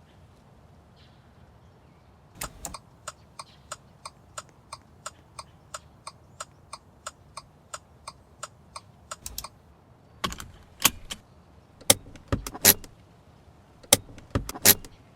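Subaru Impreza sound effects played in an RC car: a run of evenly spaced sharp ticks, about three a second, lasting some seven seconds, then several louder, irregular clunks and short noises near the end.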